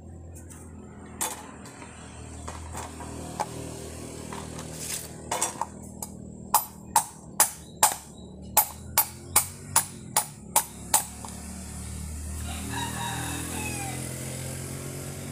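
Machete blade knocking on a coconut shell set on a wooden chopping block: a few scattered knocks, then a run of about ten sharp strikes at roughly two to three a second. A rooster crows about twelve seconds in.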